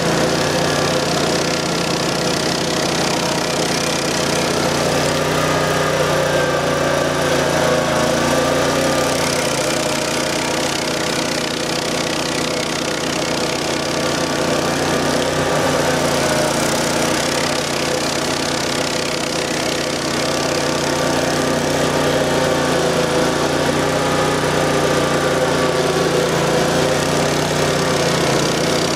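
A 1997 Vermeer SC252 stump grinder's 20 HP Honda V-twin gas engine runs steadily while its Greenwheel cutter wheel grinds a stump into chips.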